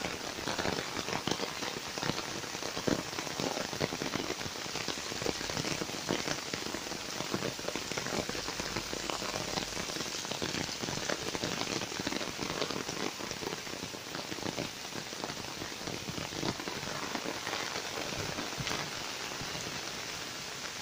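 Steady rain falling, a dense patter of single drops hitting close by over a constant hiss.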